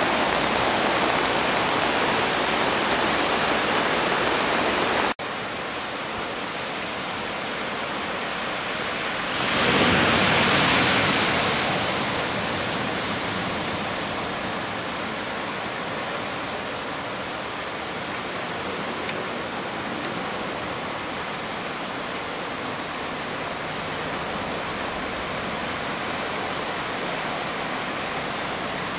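Floodwater rushing across a street, a steady noise of moving water. It breaks off abruptly about five seconds in and continues a little quieter, then swells briefly into a louder splashing hiss about a third of the way through.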